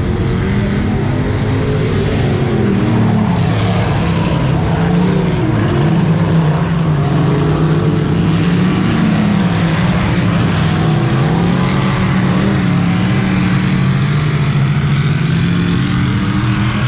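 A pack of dirt-track race cars running laps, several engines at once rising and falling in pitch as the cars go through the turns.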